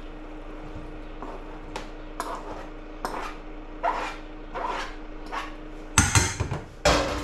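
A fork scraping food off a cutting board into a stainless steel bowl in short strokes about once a second, then two louder clatters of utensils against the metal bowl and board near the end.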